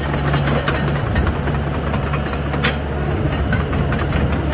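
Komatsu PC60 mini excavator's diesel engine running steadily, a constant low hum with a light rattle over it.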